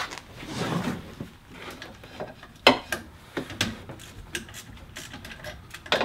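Metal hand tools clicking and clinking against nuts and terminals as the wiring is undone from a golf cart's starter generator. The taps come irregularly, with one sharper clank a little before the middle.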